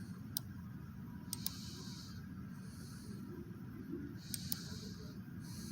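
Soft breathing close to the microphone over a low steady hum, with a few sharp clicks, two of them in quick pairs.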